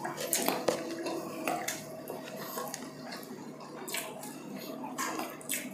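People chewing food, with irregular sharp clicks and smacks from their mouths.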